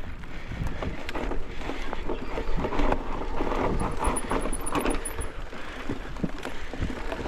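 Mountain bike riding down a rough, rocky dirt trail: tyres on dirt and rock, with frequent rattles and knocks from the bike.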